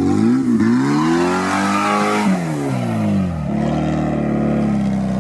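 Lifted Suzuki Samurai trial 4x4's engine revving under load on a dirt climb: the revs rise for about two seconds, drop back, then hold steady.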